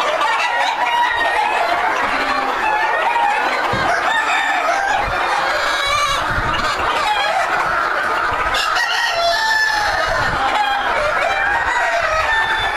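A flock of White Crested Black Polish chickens clucking and calling all at once, many voices overlapping in a dense, steady chorus.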